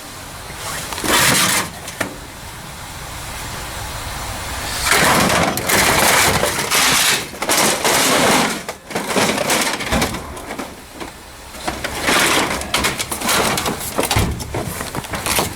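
Junk in a dumpster being rummaged through and stepped on: irregular crunching and rattling in bursts, loudest about five to eight seconds in and again later on.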